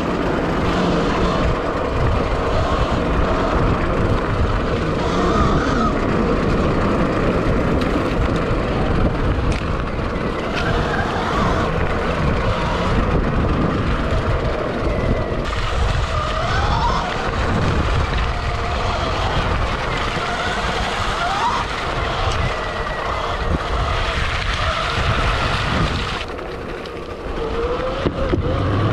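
Sur-Ron electric dirt bike being ridden: the motor's whine rises and falls with the throttle again and again over a heavy, uneven rumble.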